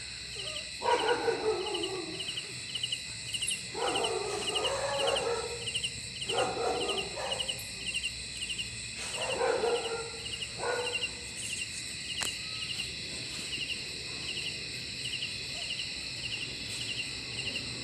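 Dogs barking in about five bursts of a second or so each, mostly in the first half. Under them runs a steady, rhythmic chirping of insects.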